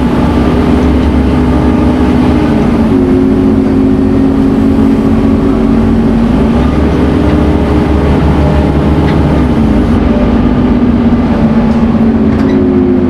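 Scania N230UD Omnicity bus's five-cylinder diesel engine running under load with a steady whine. Its pitch shifts a few times.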